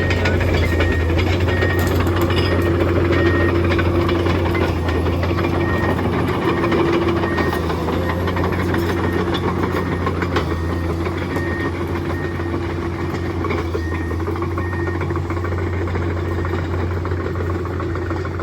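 Komatsu PC220 excavator's diesel engine running steadily, with a deep, even drone and a faint, evenly repeated high beep that comes and goes.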